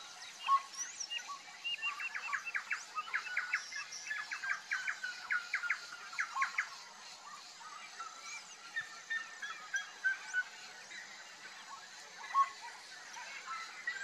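Small wild birds calling: runs of quick, high chips, densest in the first half, mixed with short falling whistled notes.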